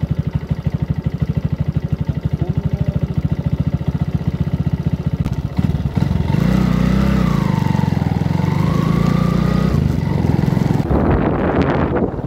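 Motorcycle engine running at low speed with an even pulse, about six beats a second. About six seconds in it picks up into a steadier, louder run as the bike speeds up. Near the end, wind rushes over the microphone.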